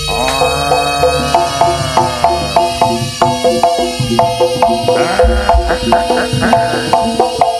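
East Javanese jaranan gamelan music: drums and metallophones striking quick, evenly spaced notes, about three to four a second, under a held melody line that slides in at the start and wavers about two thirds of the way through.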